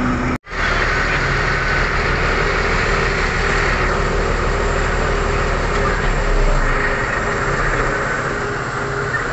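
Heavy diesel engines of mining machines running steadily, with a deep rumble that eases about seven seconds in. The sound drops out for an instant about half a second in, where the recording cuts.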